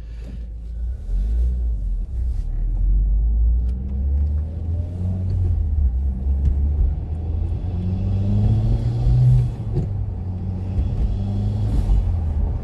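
Mitsubishi Lancer Evolution X's turbocharged 2.0-litre four-cylinder on its stock air intake, heard from inside the cabin as the car accelerates. The engine note climbs twice and drops away suddenly about three-quarters through. Hardly any turbo noise is heard.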